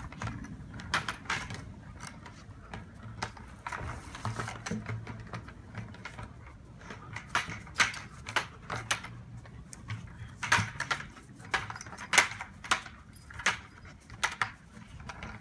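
Empty plastic 5-gallon bucket clattering, knocking and scraping as a German Shepherd shoves it about and carries it in its mouth, with its wire handle rattling. The irregular knocks are loudest about eight, ten and a half and twelve seconds in.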